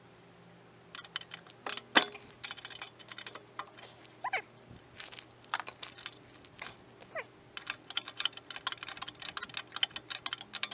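A rapid, irregular series of light clicks and clinks, as of hard objects being handled, getting busier toward the end, with two short falling squeaks about four and seven seconds in.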